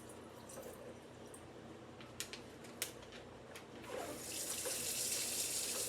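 A few small clicks, then from about four seconds in a steady stream of running water, like a tap running into a sink.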